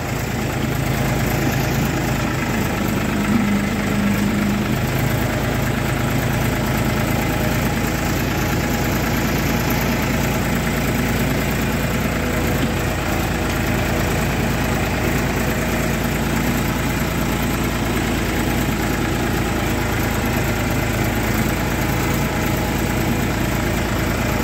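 Tractor diesel engine running steadily at a constant speed, heard close up.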